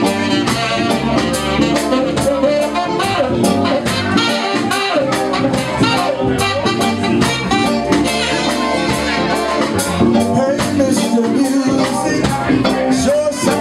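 Live band playing with a steady drum beat: electric guitars, bass guitar and saxophone.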